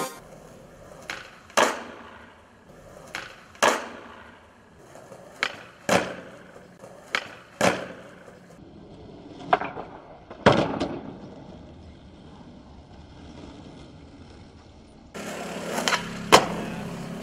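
Skateboard popping off its tail on concrete and landing back on its wheels about half a second later: a sharp clack followed by a slap, repeated about six times for successive flatground flip tricks.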